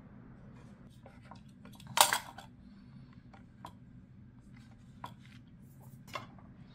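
Light clicks and taps of hands handling clay pieces and hand tools on plywood work boards, with one sharp clatter about two seconds in and a smaller one near the end as tools are put down on the board.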